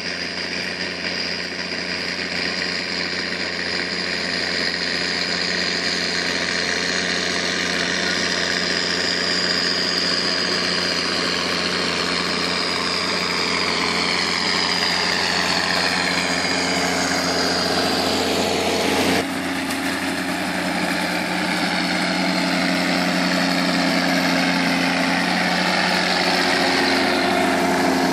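Massey Ferguson tractor's diesel engine running steadily while it pulls a Tebbe manure spreader that is spreading, growing gradually louder as it comes closer. A high whine falls slowly in pitch and breaks off abruptly a little over half way, after which the engine runs on steadily.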